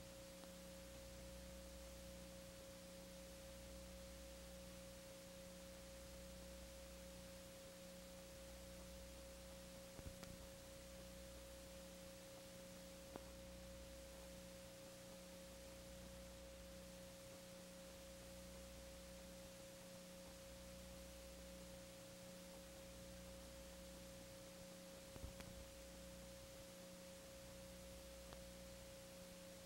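Near silence with a faint steady hum on one pitch, a slow low throb underneath, and a few faint ticks.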